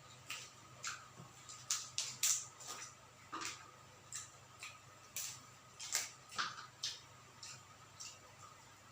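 Chewing and crunching crispy deep-fried quail, a string of irregular short, sharp crunches and mouth clicks.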